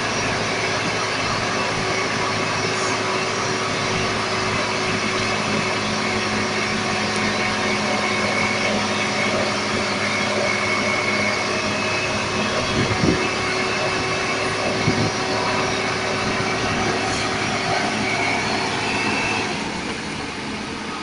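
Heavy diesel engine of the recovery machinery running steadily, with two short knocks about halfway through. It quietens slightly near the end.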